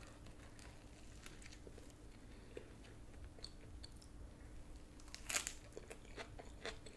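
Faint crunching and chewing as a club sandwich on butter-toasted bread is bitten and eaten, with a louder crunch a little over five seconds in.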